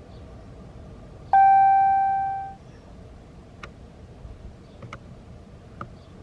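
A single electronic chime from the car's dashboard, one clear tone that rings for about a second and fades away, followed by a few faint clicks.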